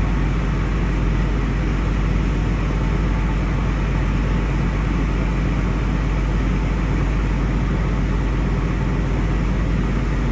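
Steady low drone of a river cruise ship's engines and machinery, heard from the open deck as the ship moves slowly into a lock.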